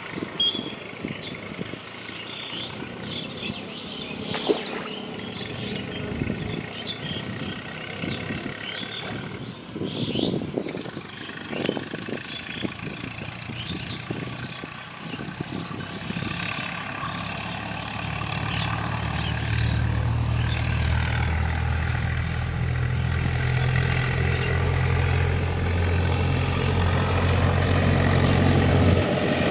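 Outdoor ambience with scattered clicks and rustles, then a steady low engine hum that comes in about two-thirds of the way through and grows louder.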